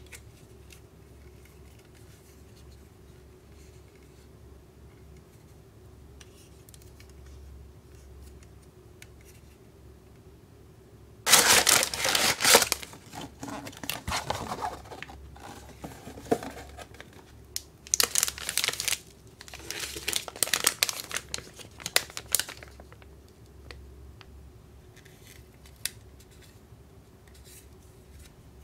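Plastic candy packets crinkling loudly as they are handled, in several bursts that start about a third of the way in and stop several seconds before the end. Before the bursts there are only faint clicks of plastic being handled.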